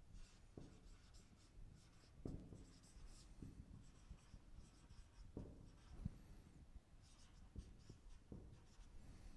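Marker pen writing on a whiteboard: faint squeaks and scratches of the pen strokes, with a few soft knocks.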